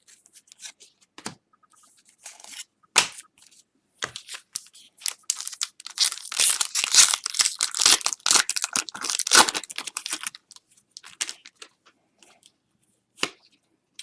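Foil wrapper of a 2013-14 SP Authentic hockey card pack being torn open and crinkled, with scattered crackles that are busiest in the middle seconds.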